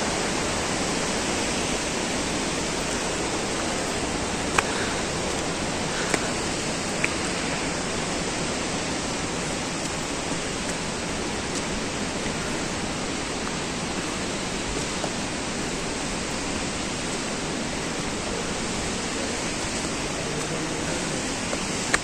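Steady, even rushing noise, with a few faint ticks in the first third.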